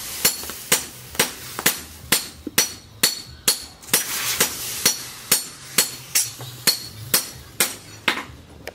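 Hammer blows ringing on metal at an anvil, a steady beat of about two strikes a second.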